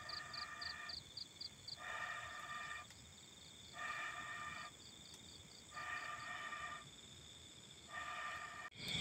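Night insects, crickets among them, chirping steadily and faintly. Over them a pitched, even-toned call sounds five times, each just under a second long, about two seconds apart.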